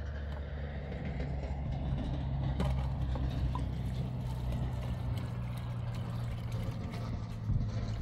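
A motor running steadily with a low, even hum, with a few faint clicks over it.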